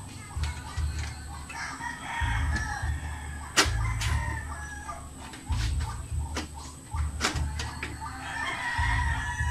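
Sharp clicks and knocks from hands working parts and cables inside a metal PC case. A pitched animal call sounds twice in the background, once near the start and once near the end.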